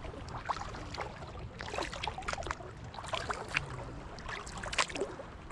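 Kayak paddling on a lake: irregular small splashes and drips of water as the paddle blades dip in and lift out.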